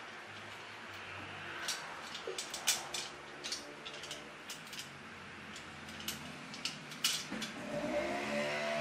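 A series of sharp plastic clicks and taps as the parts of a ring light are handled and fitted together, over a faint steady low hum.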